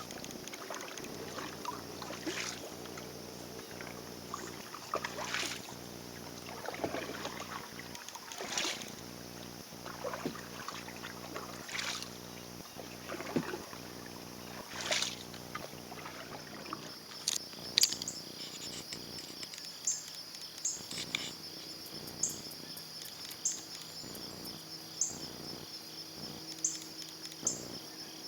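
A paddle swishing through the water in slow strokes every two to three seconds. About two-thirds of the way in, the strokes stop and insects take over: a steady high buzz with short chirps repeated over it.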